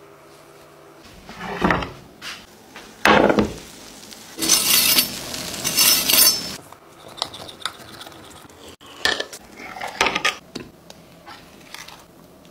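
Metal kitchen knife and spatula scraping against the bottom of a glass baking dish as a baked cheese-topped bake is cut and a slice is lifted out. Several harsh scraping strokes come in the first half, followed by lighter scrapes and clicks.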